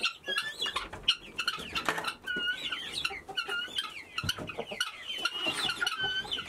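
Several chickens clucking and calling, many short calls overlapping one another without a break.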